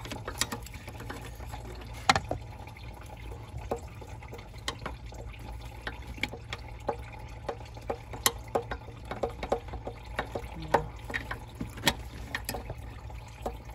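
Irregular light clicks and ticks of water-pump pliers gripping and working a small hose clamp and plastic coolant-line fitting on a turbocharger, over a steady low hum.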